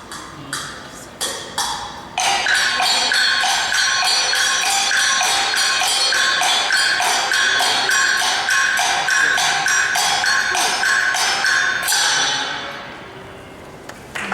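Live band music with fast, even percussion strokes and a ringing figure repeated about twice a second. A few scattered strikes open it, the full piece comes in about two seconds in, and it fades out about twelve seconds in.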